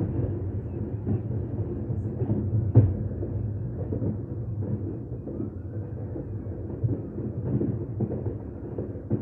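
Aerial fireworks shells bursting: a run of low booms and thumps over a continuous rumble, with the loudest bang about three seconds in.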